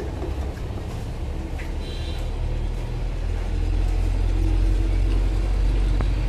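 Low steady rumble that grows louder about three seconds in, with a faint click near the end.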